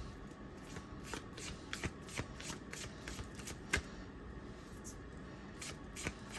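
A deck of oracle cards being shuffled by hand: irregular clicks of card against card. The cards tend to stick together as they are shuffled.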